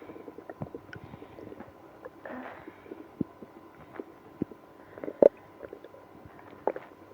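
Stomach growling and gurgling in a person with IBS, upset by milk and prune juice: a run of small irregular pops and squelches, with a longer gurgle a little over two seconds in and the loudest pop about five seconds in.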